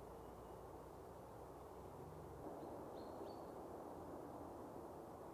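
Quiet woodland ambience: a faint, steady low background hiss, with a brief faint bird chirp about three seconds in.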